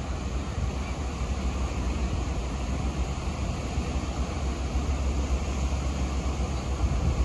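Small surf breaking and washing up a sandy beach, a steady wash of noise, under a low rumble of wind on the microphone.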